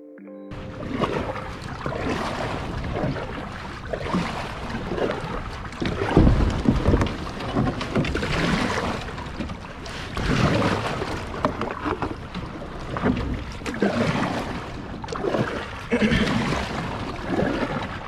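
Kayak paddle strokes splashing through river water, a louder surge of splashing about every two seconds, with wind rushing over the microphone.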